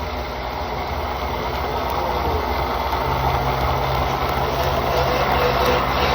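Woodturning lathe running, a steady motor hum under a broad machine noise; a steadier low hum tone joins about three seconds in.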